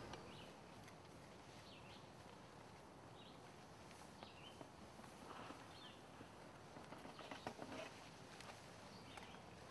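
Faint woodland ambience: scattered short bird chirps and light rustling in dry leaf litter, with a cluster of rustles and clicks about seven to eight seconds in.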